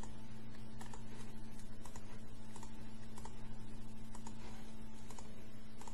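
Faint, irregular light taps and clicks of a writing tool as the letter zay is written out, over a steady low electrical hum.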